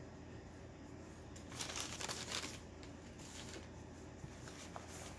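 Soft rustling and crinkling of wrapping as an item is taken out of a packing box and unwrapped: one run of about a second, then a shorter one just after.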